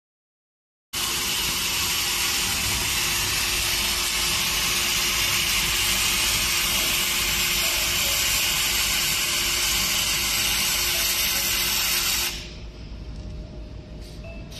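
Gasless flux-core MIG welding arc from a Lazaro MIG 120 inverter welder: a loud, steady hiss that starts abruptly about a second in and stops suddenly about eleven seconds later.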